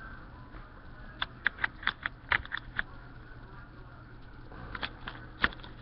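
Quick little clicks and taps of plastic LEGO pieces being handled, in two short clusters, over a steady low hum.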